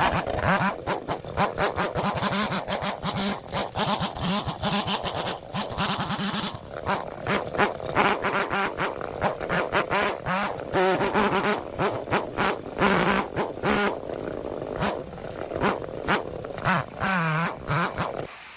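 Chainsaw running and revving as it cuts, its pitch rising and falling near the end, with many sharp cracks and snaps throughout.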